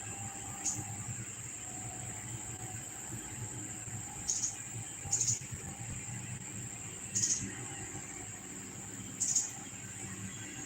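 Background ambience: a steady high-pitched whine with a short, falling chirp every second or few, over a faint low hum.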